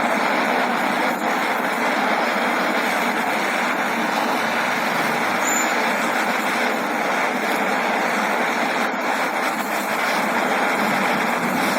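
Gas torch flame hissing steadily as it heats steel for brazing with brass rod.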